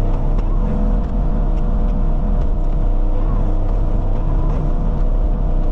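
Diesel engine of a compact construction machine running steadily under work, a loud low drone with a few faint clicks and knocks over it.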